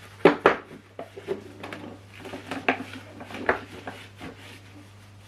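Hard plastic parts of a Numatic Henry vacuum cleaner being handled and knocked together during hand cleaning: a string of irregular clacks and clatters, the loudest just after the start.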